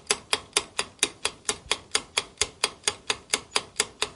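Clock-ticking sound effect marking the countdown timer as the answer time runs out: a steady run of sharp ticks, about four a second.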